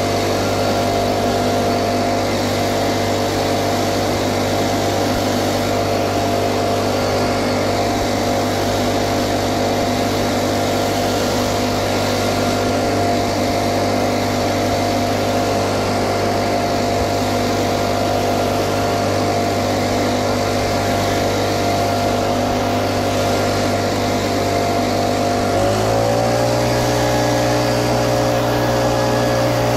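Little Wonder Optimax walk-behind blower running steadily at working speed, its engine and fan blowing pine needles across the ground. About 25 seconds in, the engine pitch steps up a little and holds there.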